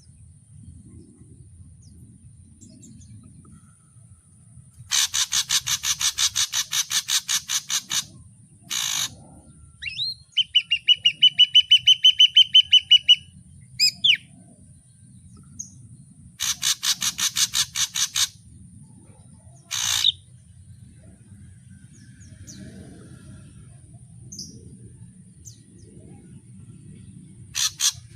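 Ashy drongo singing. It gives two bursts of rapid, harsh chattering notes at about five a second, a run of loud repeated whistled notes in between, and a few single sharp calls.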